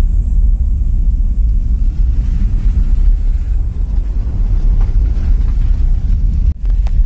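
Steady low rumble of a car driving along a rough, wet country lane, heard from inside the cabin: engine and tyre noise. It drops out for an instant near the end.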